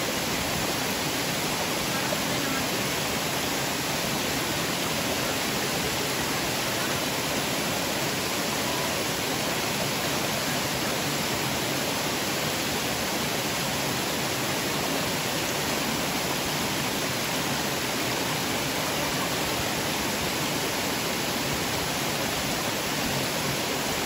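Small waterfall cascading over rocks into a stream pool: a steady rush of water.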